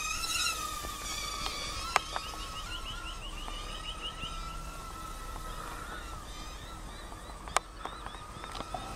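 Proto X nano quadcopter's tiny motors and propellers whining in flight, a steady high-pitched hum that wavers slightly in pitch as the throttle changes. A couple of sharp clicks come about two seconds in and again near the end.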